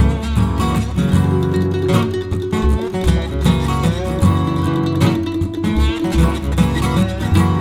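Background music led by a strummed acoustic guitar, with a bass line.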